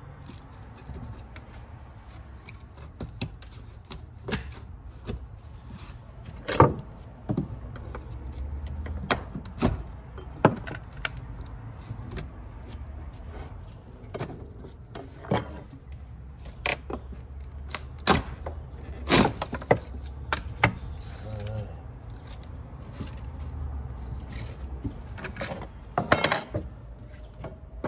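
Rotted wood of a door jamb being pulled and broken out by hand: irregular cracks and knocks every second or two as the decayed wood gives way.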